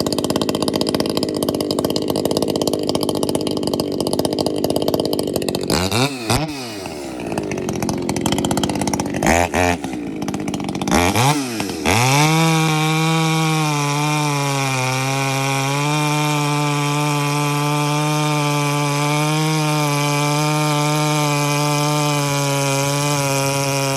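Echo CS-620PW two-stroke chainsaw rip-cutting along the grain of hard ash, throwing noodle shavings. The engine pitch dips and climbs again a few times about halfway through, then the saw settles into a steady, even run for the rest.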